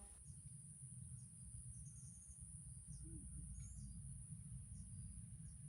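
Quiet outdoor ambience: a steady, faint, high-pitched insect drone, with a few brief faint chirps and a low background rumble.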